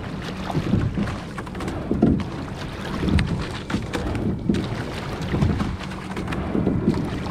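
Rowing boat under way on open water: water sloshing at the hull in surges about once a second, over a low wind rumble on the microphone.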